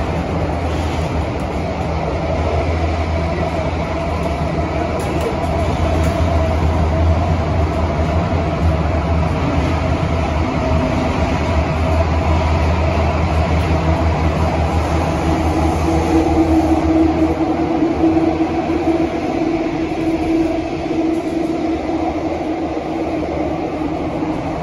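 Kawasaki & CRRC Sifang CT251 metro train heard from inside the passenger car while running between stations: a steady rumble of wheels and running gear with a continuous hum. The deep rumble thins in the last several seconds as a lower hum comes up.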